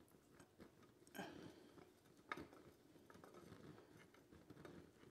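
Faint crackling and popping of quench oil under a red-hot leaf-spring-steel draw knife blade, its cutting edge sitting in the oil to harden while the backbone stays soft. Small ticks run throughout, with a louder crackle about a second in and a sharper pop a little after two seconds.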